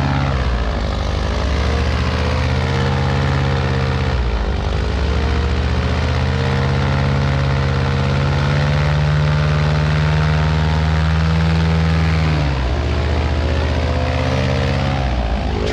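Airboat engine and its caged air propeller running at high throttle, straining to pull a swamped boat off the river bottom. The revs sag and climb back about three times.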